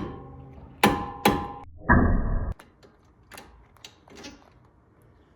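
Sharp metal-on-metal strikes that ring briefly, two in the first second and a half, then a short dull clatter about two seconds in and a few light clicks: a pin tool being knocked against a brake caliper's pad-retaining pin to drive it out.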